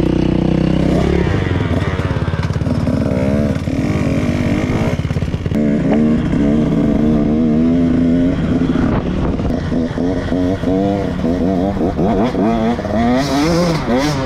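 KTM 150 two-stroke dirt bike engine revving hard, its pitch rising and falling again and again as the throttle is opened and closed.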